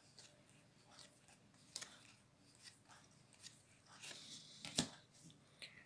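Faint sliding and soft clicking of Magic: The Gathering cards being moved one at a time through a stack in the hands. A small rustle about four seconds in ends in the loudest snap, just before five seconds.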